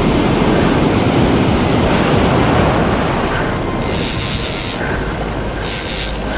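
Surf breaking and churning around a wading angler, with wind buffeting the microphone. Two brief higher hisses come about four and about six seconds in.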